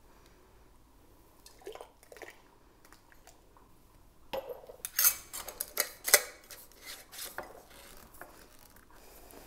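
Glass mason jars, a ladle in a pot, a plastic canning funnel and metal jar lids and rings clinking and knocking as hot sauce is jarred for canning. A few light clicks come first, then a burst of sharp clinks about halfway through.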